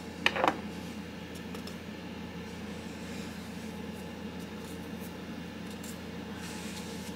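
Spyderco Paramilitary 2 folding knife being handled and its blade swung on the freshly snugged pivot, giving faint scattered small clicks over a steady low room hum. There is a short, louder sound about a third of a second in.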